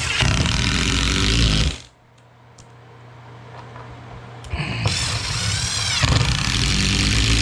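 Power drill driving screws through the floor patch into a joist, running twice: once at the start for under two seconds, then again for about three seconds, with the motor's pitch sweeping up and down near the end of the second run.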